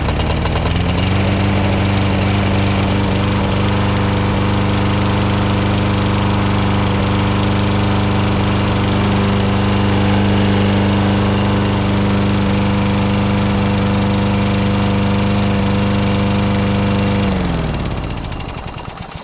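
1998 Lawn-Boy 10328's 4.5 hp Tecumseh four-stroke engine, just started on its newly replaced carburetor for the first run of the season. It comes up to speed within the first second and runs steadily, then is shut off about 17 seconds in and winds down, its pitch falling as it coasts to a stop.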